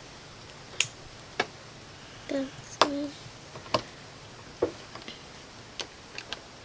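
Plastic Lego bricks clicking and tapping as pieces are handled and snapped together: about eight sharp clicks at irregular intervals, with two brief low voice sounds in the middle.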